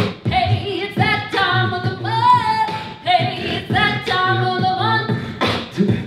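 Music: women singing the show's theme song, mostly unaccompanied, over a steady low beat.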